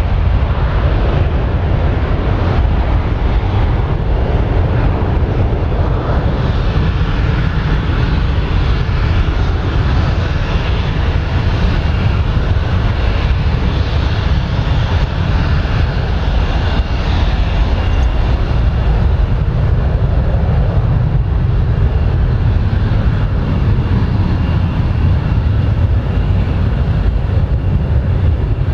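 Boeing 737-800 airliner's CFM56-7B turbofan engines at climb power just after takeoff: a steady, low, rumbling jet noise that holds level throughout.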